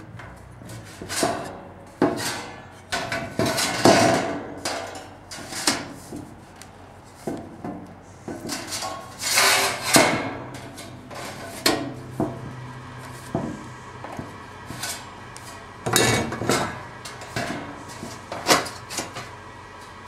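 Irregular metallic knocks, scrapes and rattles of thin 24-gauge sheet metal being bent with a hand folding tool, then the bent pieces handled and fitted together on a wooden table.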